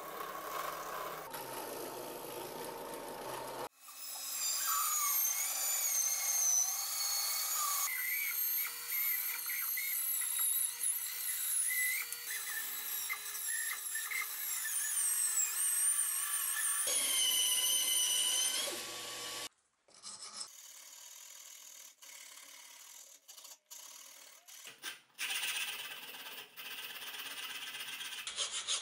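A drill press boring through the wooden handle scales on a steel cleaver tang. Then a band saw cutting wood, a loud sound with high, wavering ringing tones, for about fifteen seconds. After a break come quieter hand-tool strokes on the handle clamped in a vise, turning to a steady rhythm near the end.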